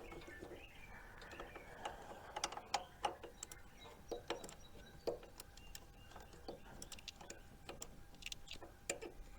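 Faint, irregular clicks and taps of hand tools and bolts as a starter motor is being bolted onto a garden tractor engine.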